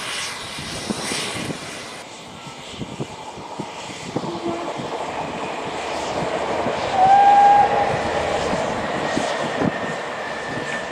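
Small steam saddle-tank engine shunting: a steady rush of steam with scattered knocks and clanks, and one short steady whistle blast about seven seconds in, the loudest sound.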